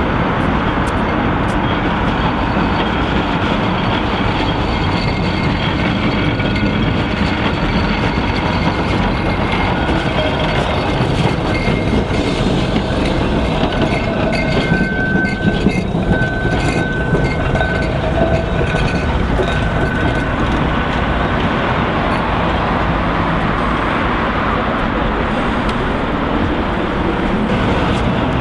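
Double-deck electric tram running on street track, its steel wheels rumbling and clicking over the rails, with a brief thin wheel squeal about halfway through.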